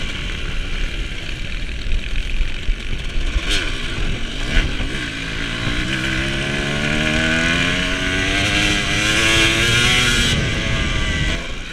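Dirt bike engine under hard throttle, its pitch rising steadily for several seconds before the revs fall away near the end. There are a couple of sharp knocks before it builds.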